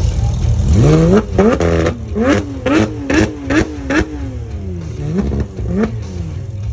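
Supercar engine and exhaust being revved in a quick series of throttle blips, the revs jumping up and dropping about twice a second. The revs then fall away, with one more short blip near the end.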